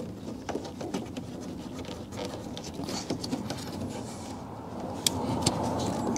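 Hands working the plastic wiring connector off a car door speaker: light scraping and rustling of the lead, with a few small sharp clicks.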